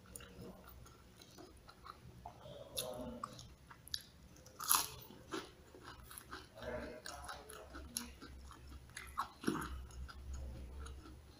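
Close-up chewing and crunching of a mouthful of ayam geprek, crispy smashed fried chicken with rice, in irregular bites and wet mouth sounds. There are louder crunches near the middle and again near the end.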